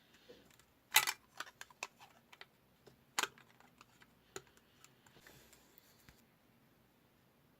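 A run of sharp, hard clicks and taps from a small plastic device being handled: a loud cluster about a second in, a single loud click about three seconds in, then lighter scattered ticks that die away after about five seconds.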